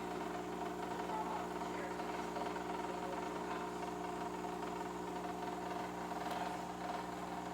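Philips 3200 fully automatic espresso machine running its pump during a brew cycle, a steady even hum. The machine is running but no coffee reaches the cup: water is leaking out of the bottom, which is the fault the owner is tracking down.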